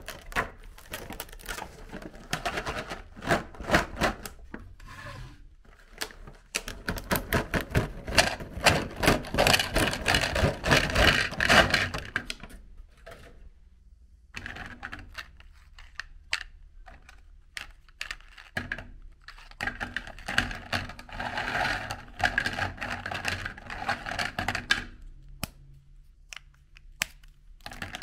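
Hard, brittle biscuits being handled. A clear plastic tray crinkles and biscuits click and clatter against each other and a plate, in two long crackling stretches with quieter pauses and scattered clicks between.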